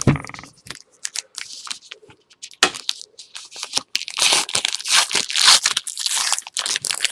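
Trading-card pack wrapper being torn and crinkled open by hand: a run of short rips and rustles that grows thicker and louder about four seconds in.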